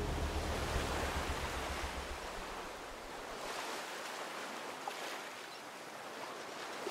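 Sea surf washing steadily on a beach, while background music fades out over the first two to three seconds.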